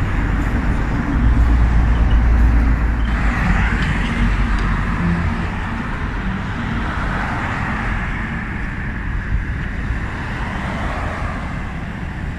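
Steady motor-vehicle road noise: a continuous deep rumble with a broad hiss of engine and tyre sound.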